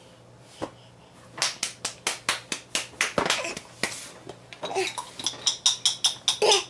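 Rapid run of sharp taps or clicks, about five a second, starting about one and a half seconds in and going on until near the end, with a brighter, clinking quality in the later part.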